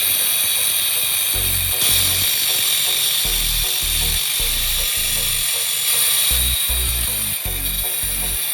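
A power tool running steadily with a high whine and hiss, over background music with a regular low beat.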